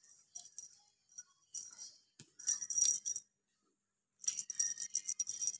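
Small metallic jingling in short shaken bursts, with a pause of about a second before a faster, busier run of jingles near the end.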